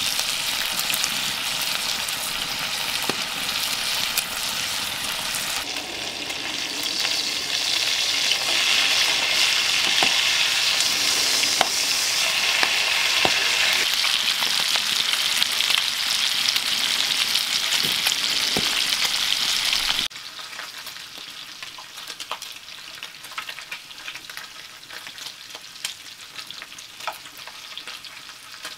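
Bacon frying in a cast iron skillet over a wood fire: a loud, steady sizzle with scattered pops. About two-thirds of the way through it drops suddenly to a quieter sizzle with sharper pops.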